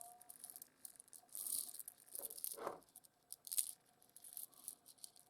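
Small rough opal pieces being moved around by hand, with light clicks and rattling and a few louder scrapes.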